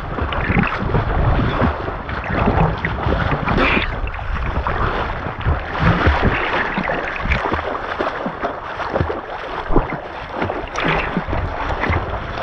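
People swimming: arm strokes splashing and water sloshing and slapping right at the microphone at the surface, in irregular splashes throughout.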